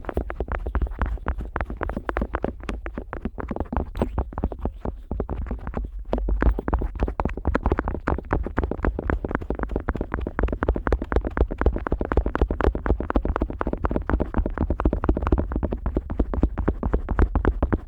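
An otoscope rubbing and scraping over the outer ear of a Neumann KU100 dummy-head microphone, picked up right at the ear. It makes rapid, continuous scratchy strokes over a deep rumble.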